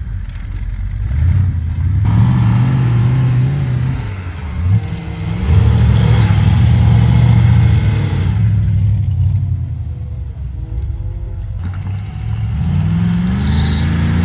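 Off-road buggy engine revving hard as it climbs a sand slope, the pitch rising in repeated surges, easing to a lower, lighter note for a few seconds mid-way, then climbing again near the end.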